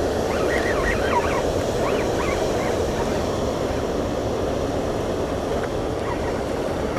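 Steady rush of water pouring through a spillway, with birds calling in short rising-and-falling notes over the first few seconds.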